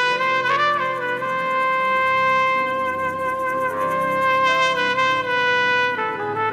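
Trumpet holding one long, sustained note with a brief bend about half a second in, then moving to other notes near the end.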